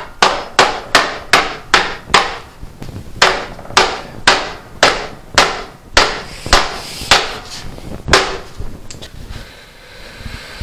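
Hand hammer beating on a wooden block laid over a fluted sheet-metal sconce blank, flattening the metal that has pulled out of flat. About sixteen sharp blows at a steady two a second, with one last blow about eight seconds in.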